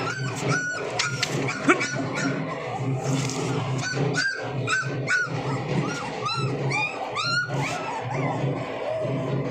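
Pak Bully puppies whining and yipping: short, high, rising-and-falling cries repeated about every half second, with a few pauses.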